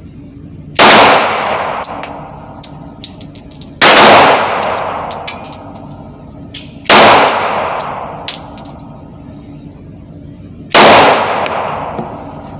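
Glock 26 Gen 4 9mm subcompact pistol fired four times, slowly, about three to four seconds apart. Each shot is sharp and loud, with a long ringing decay of about two seconds. Small faint clicks sound between the shots.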